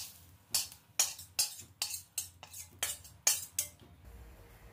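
Spatula scraping and tapping against a wok in quick, irregular strokes, about ten in all, as stir-fried vegetables are pushed out onto a plate. The strokes stop near the end.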